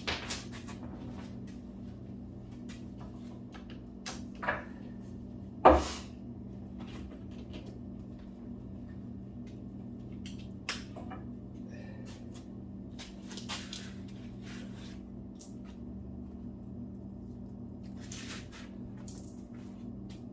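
Scattered clanks and knocks of hand tools and parts on a GM 5.3L LS V8 engine block during teardown. The sharpest come about 4.5 and 6 seconds in, with lighter taps later, over a steady low hum.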